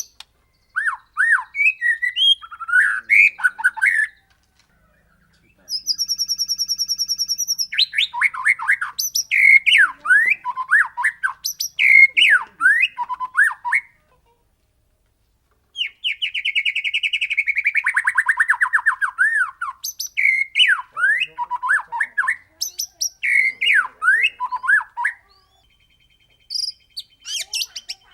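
White-rumped shama (murai batu) singing: loud, varied whistled phrases mixed with rapid rolling rattles, one of them sliding downward, delivered in bursts separated by short silent gaps.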